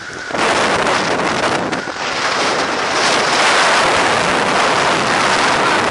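Snowstorm wind gusting hard and buffeting the action camera's microphone: a loud, steady rush that jumps up about half a second in and holds.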